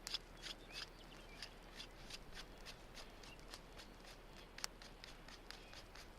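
Faint rustling and light clicks of wooden sticks handled by hand while a drying rack is built, with one sharper click about two-thirds of the way through.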